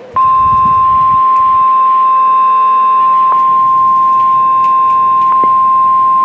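NOAA Weather Radio warning alarm tone: one loud, steady, high tone at about 1050 Hz that switches on just after the start and holds without a break, alerting receivers that a warning broadcast, here a tornado warning, is about to follow. A few faint clicks are heard over it.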